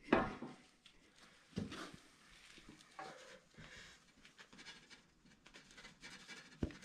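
A man straining to free a rusted, stuck wheel bearing from a dirt bike's wheel hub with a long steel punch: short effortful grunts and breaths, light metal scraping and ticks, and a sharp click near the end.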